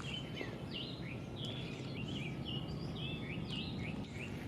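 Small birds chirping, a quick string of short high notes that dip and rise, over a steady low outdoor background noise.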